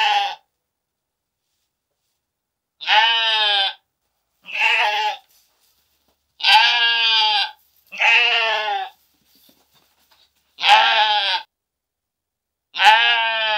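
Sheep bleating: about seven separate, quavering bleats, each about a second long, with silence between them.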